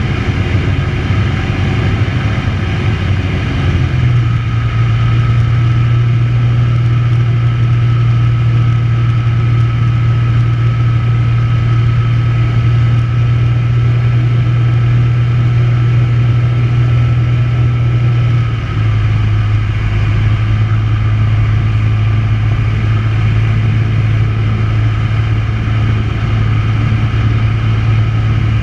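Tecnam P92's Rotax 912 engine and propeller running steadily in flight, heard inside the cockpit. The engine note rises slightly about four seconds in and drops back a little about two-thirds of the way through.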